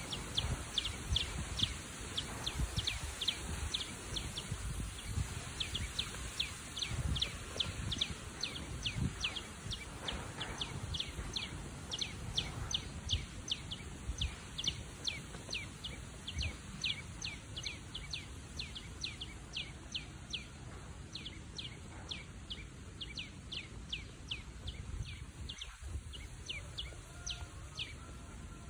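A small songbird calling a short, falling note over and over at an even pace, about two or three a second, over a low rumble.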